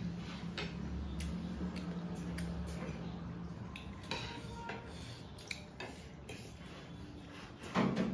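Forks and spoons clinking and scraping against ceramic plates in scattered light clicks, over a low steady hum. A louder knock comes near the end.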